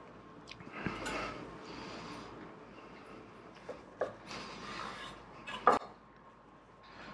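A chef's knife cutting a brioche sandwich on a wooden cutting board: soft rasping of the blade through the bread, a few light knocks, and a sharp knock of the blade on the board near the end.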